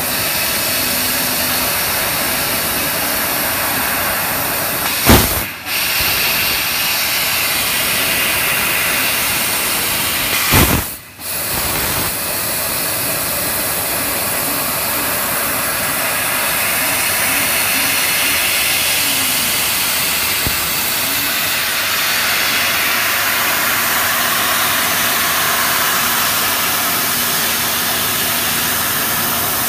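Fiber laser cutting machine cutting aluminium sheet: a loud, steady hiss of assist gas jetting from the cutting nozzle. Twice, about five and eleven seconds in, a sharp pop and the hiss stops for a moment before starting again.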